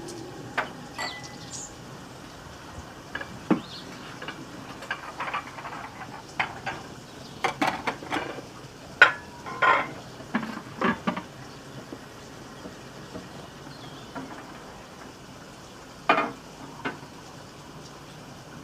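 Hard household objects being handled and set down: a scattered series of light clinks, taps and knocks, a few of them ringing briefly. They are busiest in the middle, with the loudest knock a little past the middle and two more near the end.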